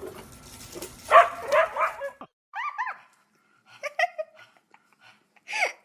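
A dog barking and yipping: a few loud barks about a second in, then several short, high yips.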